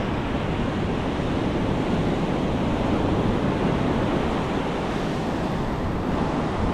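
Ocean surf breaking and washing up a sandy beach, a steady rush, with wind buffeting the microphone.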